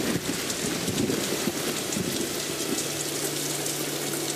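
Water falling in many drops into the tiered basins of a fountain, a steady even patter and splash on the water's surface.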